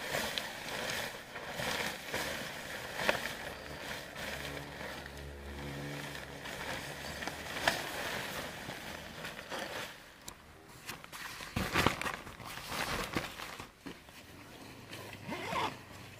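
Nylon tent rain fly rustling and crackling as it is thrown over a dome tent and pulled into place, with short handling clicks and knocks.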